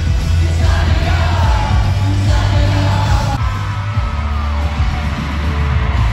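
Live pop-rock band playing in an arena, recorded on a phone, with heavy bass, singing, and the crowd yelling and cheering over it.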